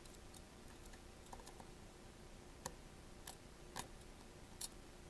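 A few faint, sharp clicks of a precision screwdriver's magnetic tip tapping at a tiny phone screw that the magnet fails to pick up.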